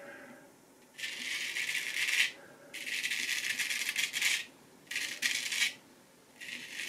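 A vintage Nashville Barber Supply Kaeser's No. 402 straight razor scraping through lathered neck stubble in four strokes, each a crisp crackling rasp lasting about a second, with short pauses between. The blade glides freely through the beard, the sign of a keen, well-honed edge.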